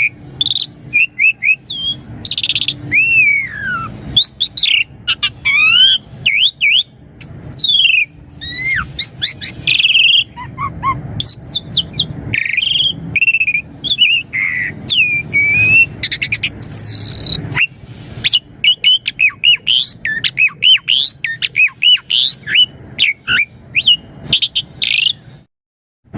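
Asian pied starling (jalak suren) singing a fast, varied song of whistles, chirps and rising and falling glides, over a low steady hum. The song breaks off briefly near the end.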